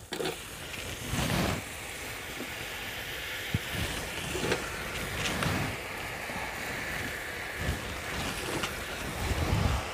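Cut potato and aubergine pieces dropped by the handful into hot masala in an iron kadhai, setting off a steady sizzle, with a few soft thumps as the handfuls land.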